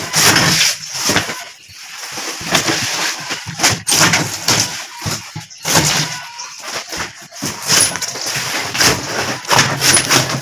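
Hand-lever veneer guillotine chopping through thin wood veneer: repeated sharp chops and clacks, with the veneer sheets rustling and slapping as they are handled.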